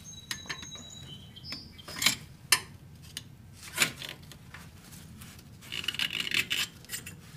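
Screwdriver prying an old dogbone mount insert out of its bracket: scattered sharp clicks and scrapes of tool against metal and rubber, with a longer bout of scraping near the end.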